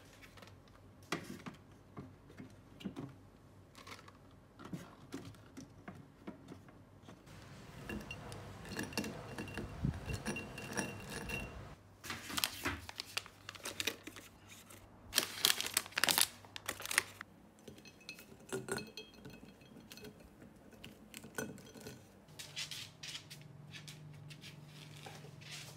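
Plastic storage containers being handled: scattered clicks, knocks and clinks as drawers and lids are moved, with louder clusters of clattering about halfway through, and some crinkling of packaging.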